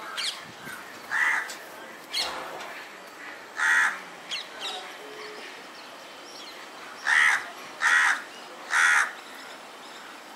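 A crow cawing five times. Two single caws come a couple of seconds apart, then three caws in quick succession near the end, with faint higher bird chirps between.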